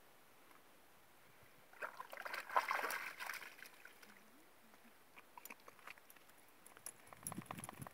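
A dog sloshing and splashing through shallow lake water as it wades out of the lake, a burst of about a second and a half starting about two seconds in. A few faint scattered clicks follow.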